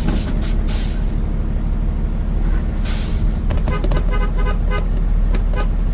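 Vehicle engine running steadily at low speed, heard from inside the cab as a constant low rumble. A short pitched call or toot comes in about three and a half seconds in and lasts about a second.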